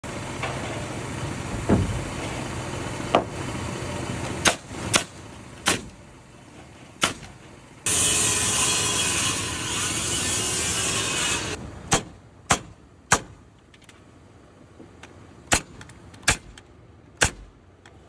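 Pneumatic framing nailer firing nails into lumber: about a dozen sharp shots, singly and in quick pairs. A few seconds of loud hissing noise sits in the middle.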